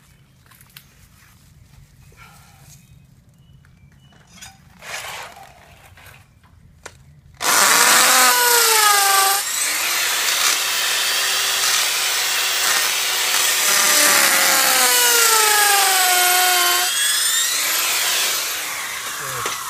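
About seven seconds in, a hammer drill starts up and bores into rocky soil. Its motor whine drops in pitch as the bit bites and comes back up, then fades off near the end.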